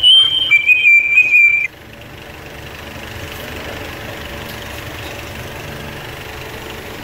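A loud, high whistle-like tone holds one pitch, drops to a slightly lower one and stops abruptly about a second and a half in. After it comes a much quieter, steady low background hum.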